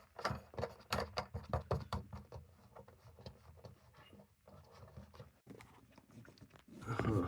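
A quick run of irregular knocks and taps for about two and a half seconds, quieter scattered ticks, then a louder scrape with a low hum near the end: handling knocks and scraping while the washing machine is worked into its drip tray.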